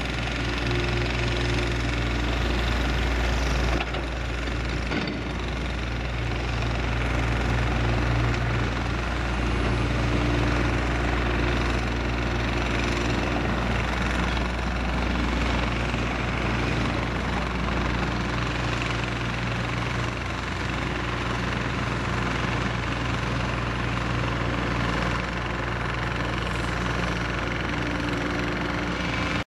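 Diesel engines of heavy construction machinery running continuously. The engine note swells and eases every few seconds.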